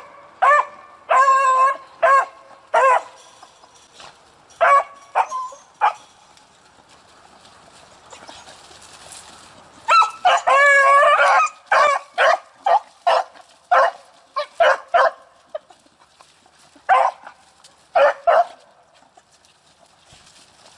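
Rabbit-hunting hounds barking and yipping in short bursts, with a dense run of barks about ten seconds in and a couple more near the end: the dogs giving voice over a baby rabbit that would not run.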